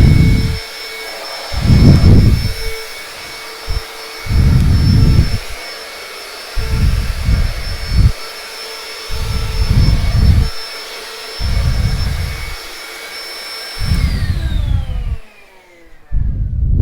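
Household vacuum cleaner running with a steady whine, overlaid by low thumps every second or two. About 14 seconds in it is switched off, and the whine falls away in pitch as the motor spins down.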